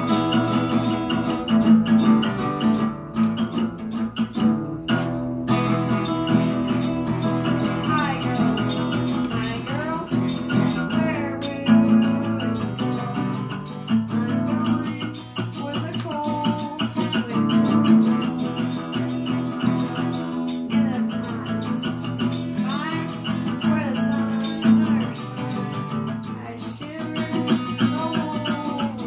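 Acoustic guitar strummed in a steady rhythm, with a voice singing over it in several stretches.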